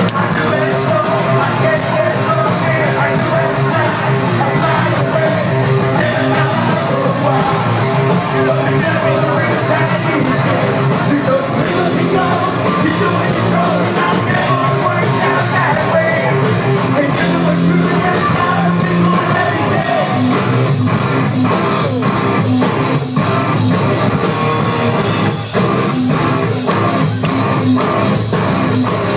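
Live hardcore metal band playing loud: distorted electric guitars, bass and drums with vocals, heard from the crowd in front of the stage. A steady drum beat comes through plainly in the last third.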